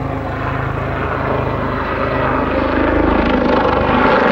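Westland Lynx helicopter flying past, its main rotor chopping steadily over the hum of its twin turboshaft engines, growing gradually louder.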